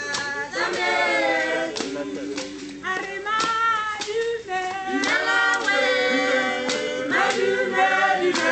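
Background music: a choir singing in harmony, several voices together in sung phrases.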